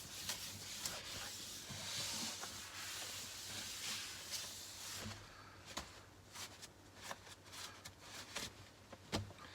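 Rubbing and rustling handling noise, then scattered light clicks and a single louder knock near the end.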